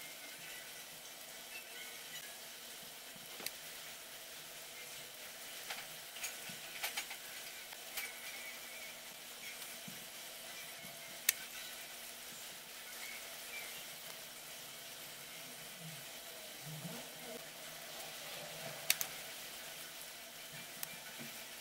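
Faint steady hiss of room tone with a handful of short faint clicks and taps, the sharpest about eleven seconds in and another near nineteen seconds.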